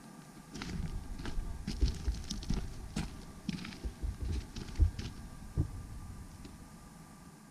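Irregular soft low thumps and short clicks, two or three a second, building about half a second in and fading near the end, over a faint steady thin whine.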